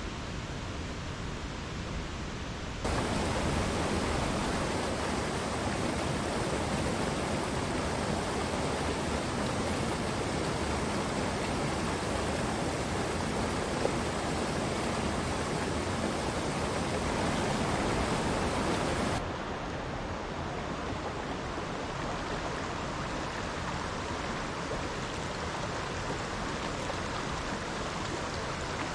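Mountain creek rushing over boulders and small cascades, a steady hiss of moving water. It grows louder a few seconds in and eases back about two-thirds of the way through.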